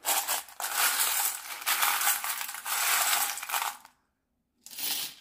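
Small charms, beads and shells rattling in a metal bowl and clattering out onto tarot cards as they are poured. It is a continuous dense rattle for nearly four seconds, then a short second clatter near the end.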